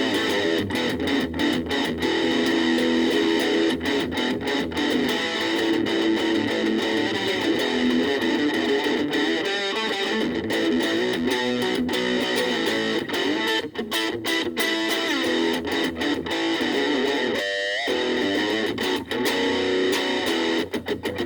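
Gaban Les Paul-type electric guitar played straight into a VOX Soundbox Mini amp, with strummed chords and picked notes in a continuous run.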